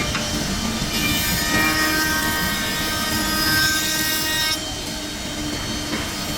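Electric wood router spinning at high speed and cutting wood, a steady high whine with several pitched tones. It gets louder from about a second in, while the bit is in the cut, and eases off a little after four and a half seconds.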